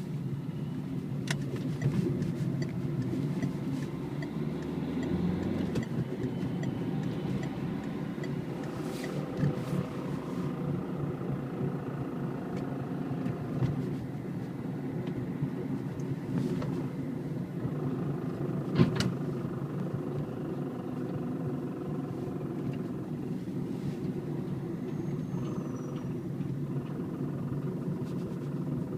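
Citroën C3 HDi diesel running with a steady low rumble, fainter tones above it wavering in pitch, and a few sharp knocks, the loudest about nineteen seconds in. It is the abnormal noise that an acquaintance of the owner puts down to the gearbox.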